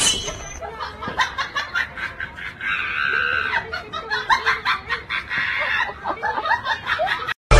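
People laughing in quick repeated bursts.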